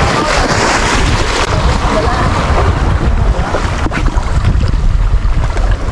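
Wind buffeting the microphone over small sea waves washing and foaming against shoreline rocks, a steady rushing noise with a heavy low rumble.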